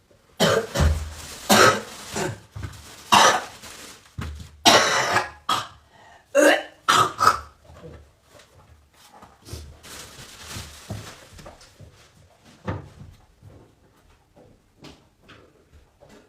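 A person coughing in a run of loud, harsh coughs and throat-clearing: a persistent cough. The coughing bunches up in the first seven seconds or so, and after that only fainter knocks and clicks are heard.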